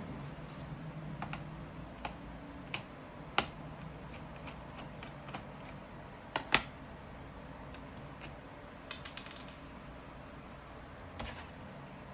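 Scattered clicks of a laptop keyboard being typed on, with a quick run of four or five key presses about nine seconds in.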